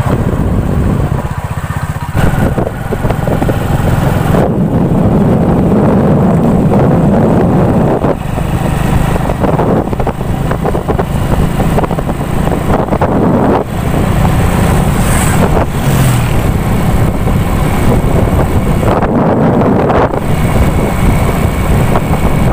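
Honda motorcycle's small single-cylinder engine running steadily while the bike rides along, with road noise throughout.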